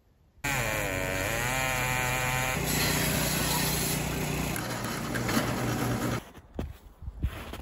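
A circular log saw running and cutting through a log: a loud, steady machine drone whose pitch wavers for the first couple of seconds, then holds steady. About six seconds in it drops away to a quieter stretch with a few knocks.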